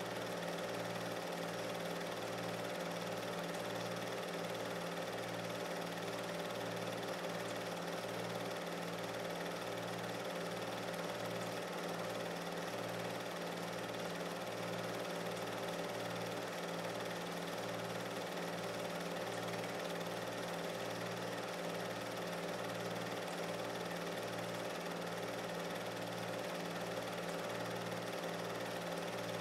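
Steady motor hum with a low throb pulsing just under twice a second. No sound of the throwing itself is heard.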